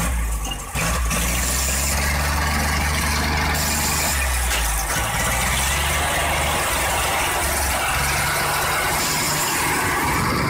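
Heavily loaded GAZ-66 truck's engine running steadily under load as it crawls through mud, dipping briefly less than a second in.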